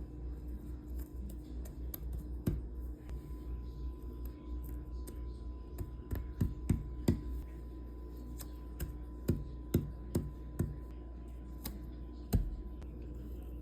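Irregular small clicks and taps of tiny cardboard jigsaw pieces being handled and pressed into place on a tabletop, with a few sharper taps in the second half.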